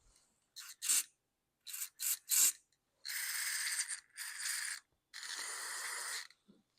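Aerosol carburetor cleaner sprayed through a small-engine carburetor's ports: about five short squirts, then three longer hissing sprays of up to a second each.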